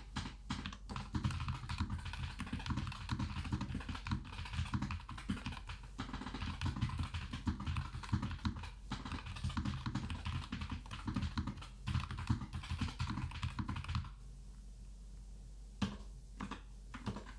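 Typing on a computer keyboard: a quick, continuous run of keystrokes that stops about fourteen seconds in, followed by a few single key presses near the end.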